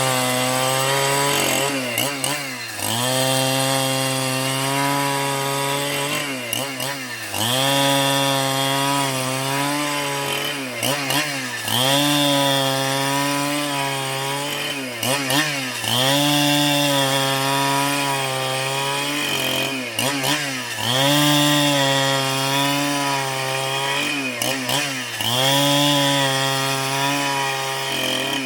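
Chainsaw running and cutting into a wooden block, its engine pitch dipping briefly and climbing back about every four to five seconds.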